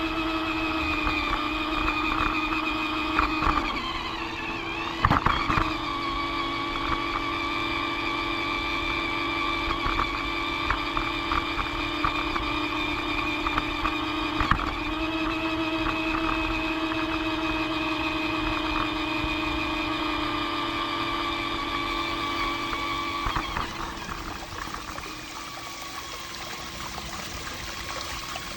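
Small electric motor of a Lego toy train whining steadily as it runs, with clicks and two brief dips in pitch. About 23 seconds in the whine fades away, leaving the steady trickle of running fountain water.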